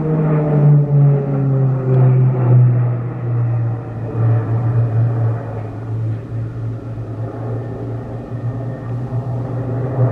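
PZL-130 Orlik turboprop trainers flying past: a steady propeller drone whose pitch drops over the first second, then holds level as the aircraft move away.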